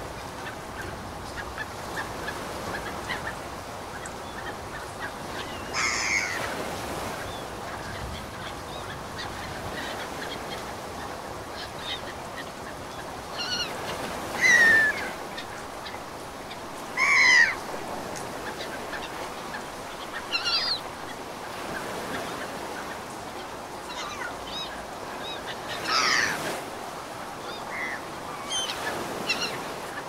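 Steady wash of ocean waves with a bird calling several times over it in short honking calls; the loudest calls come near the middle.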